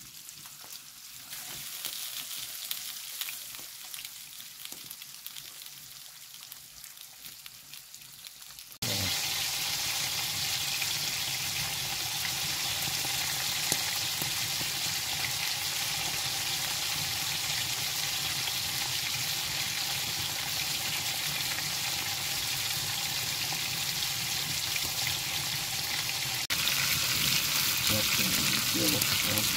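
Food sizzling and frying in a hot iron pan over a wood fire, a steady hiss that jumps abruptly louder about nine seconds in and again near the end.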